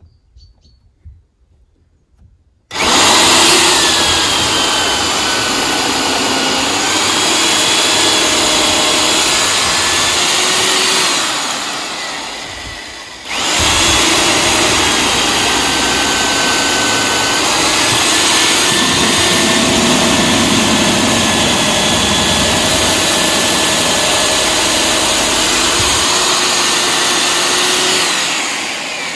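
Power drill with a long Armeg extension bit boring through a timber rail, in two long runs: it starts about three seconds in, slows and dies away around twelve seconds, then starts again and runs until just before the end, its whine wavering in pitch.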